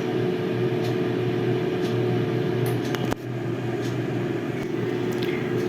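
Steady electric hum of a running kitchen appliance's motor or fan. A sharp click comes about three seconds in, after which the hum drops slightly and changes in tone.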